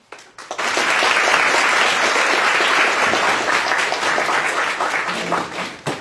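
Audience applauding: a few scattered claps at first, swelling within about half a second into full, steady applause that thins out near the end.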